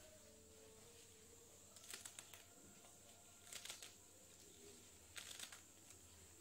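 Faint crisp snapping and crackling of fresh leafy greens (saag) being cut and stripped by hand with a small knife: three short bursts about a second and a half apart.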